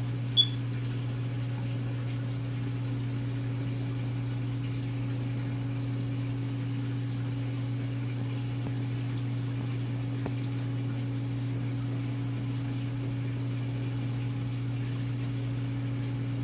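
Steady low hum of a reef aquarium's pump, even in level throughout. A single short high beep sounds just under half a second in.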